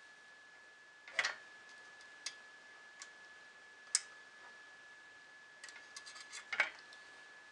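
Small metallic clicks and taps of a screwdriver and screw working on a 3D printer's metal frame parts as a screw is being fitted: single sharp ticks about a second apart, then a quick flurry of light clicks with a louder one near the end. A faint steady high-pitched tone runs underneath.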